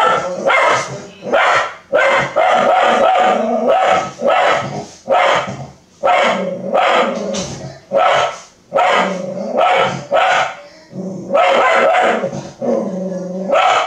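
A dog barking loudly and persistently, about one bark a second, with some barks running together in quick runs.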